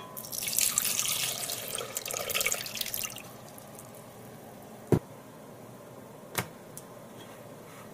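Water poured from a measuring cup into an empty glass blender jar for about three seconds. Then a single knock, and a second sharp snap about a second and a half later as the ring-pull lid of a can of chipotles is lifted.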